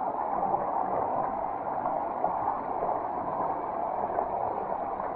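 Mountain torrent's water rushing steadily over rocks.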